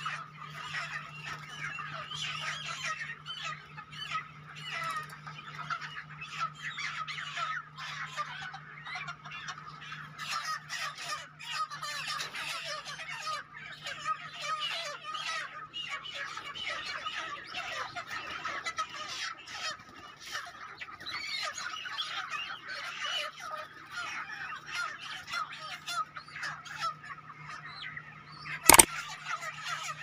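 A large flock of broiler chickens calling all at once, a dense continuous chatter of overlapping squawks, over a steady low hum. A single sharp knock near the end is the loudest sound.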